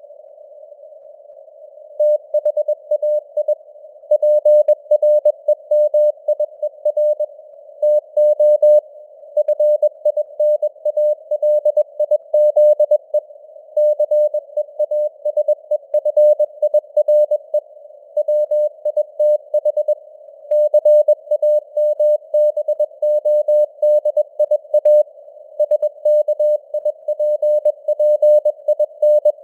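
Morse code (CW) sent at 21 words per minute: a single beep of about 600 Hz keyed on and off in dots and dashes over a narrow band of simulated radio hiss. Only the hiss is heard for about the first two seconds, then the keying resumes.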